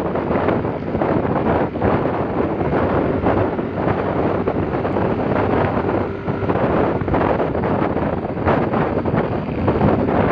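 Wind buffeting the microphone on a moving motor scooter, a loud fluttering rush, with the scooter's engine and road noise underneath.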